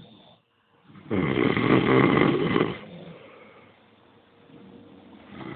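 A person snoring in their sleep: one loud snore about a second in, lasting nearly two seconds, then a quieter breath, with the next snore starting near the end.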